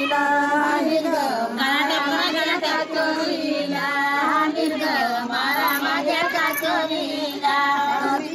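A high-pitched voice singing, its held notes bending up and down, over a steady lower tone.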